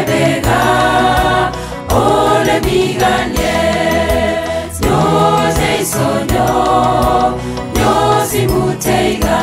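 A mixed church choir of men and women singing a gospel song together, in phrases of about three seconds with short breaks between.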